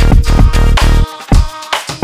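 Electronic dance music with a heavy bass and a quick, regular beat; about halfway through the bass cuts out, leaving a few sharp hits.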